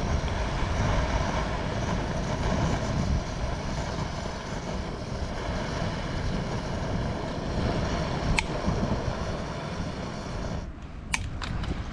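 A small fan blowing air onto a campfire, running with a steady whirring rush, then stopping abruptly near the end, followed by a few sharp clicks.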